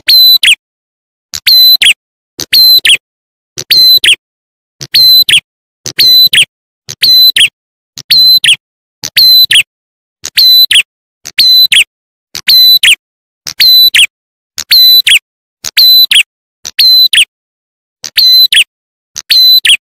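Looped bird-trapping lure recording of a ciblek klawu (prenjak atas) calling: short, sharp chirp phrases repeated about once a second, each a high note followed by a falling note, played loud.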